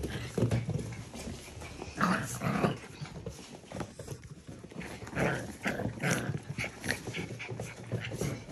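Six-and-a-half-week-old Portidoodle puppies (Portuguese Water Dog × Poodle) playing rough together, making short, irregular puppy growls and squeaky vocalisations amid scuffling.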